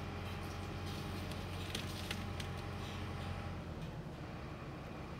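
An engine running steadily with a low drone, which drops off and changes about three and a half seconds in, with a few faint light clicks in the middle.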